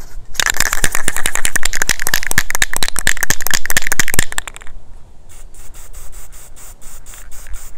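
ColorPlace aerosol spray paint can being shaken hard, its mixing ball rattling rapidly for about four seconds. Then a quieter hiss as the paint is sprayed in a light coat.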